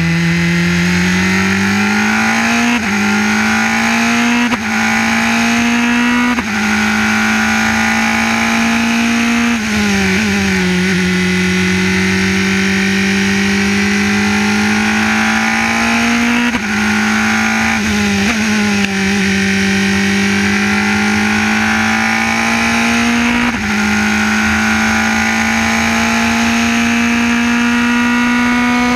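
Formula 3 race car engine running hard, heard from the car's onboard camera. Its note creeps up steadily and dips briefly at each gear change, about eight times.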